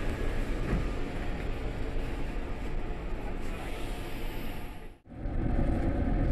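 Steady noise inside a Kintetsu limited express car standing at an underground platform before departure. About five seconds in it cuts off abruptly and is replaced by similar steady station-platform noise.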